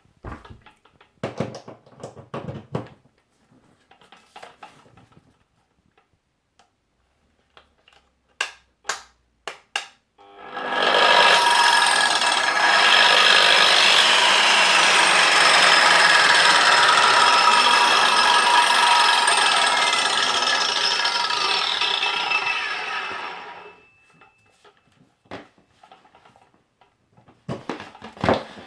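Parkside PWS 230 B2 230 mm angle grinder switched on, running steadily with a high whine for about thirteen seconds, then switched off. Scattered clicks and knocks of handling come before and after.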